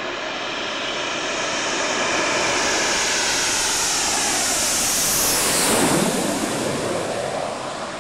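Panavia Tornado's Rolls-Royce RB199 jet engines growing louder as the aircraft comes in low toward the camera. The whine falls sharply in pitch as it passes, a little over five seconds in, and the sound eases off near the end.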